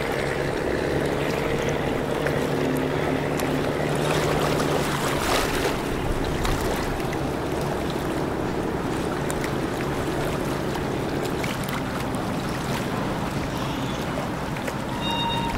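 A motorboat engine running steadily, a hum of several steady tones over the rush of water and wind, the hum fading after about eleven seconds.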